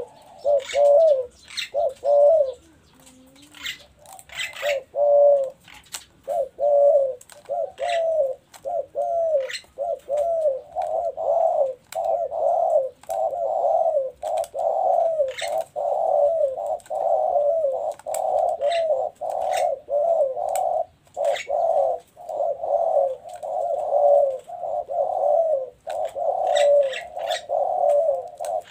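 Spotted doves cooing over and over. A few coos come at first, then after a short lull a nearly unbroken run of repeated coos starts about six seconds in.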